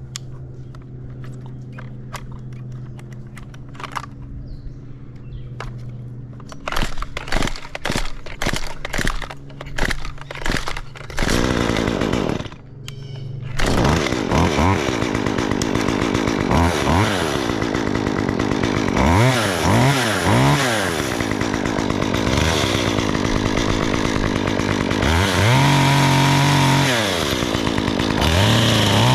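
Gas chainsaw: first a steady low engine note, then a run of sharp pops and bursts. From about halfway through it runs loud, revving up and down several times.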